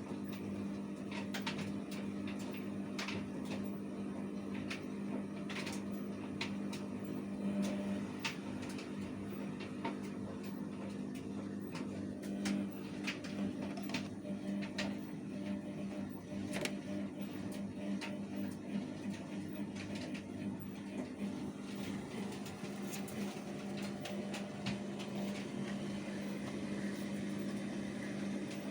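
Washing machine running: a steady low hum with irregular clicks and knocks over it.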